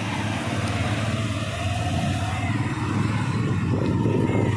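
Motorcycle engine running steadily under way, a low even hum with road noise, getting a little louder toward the end.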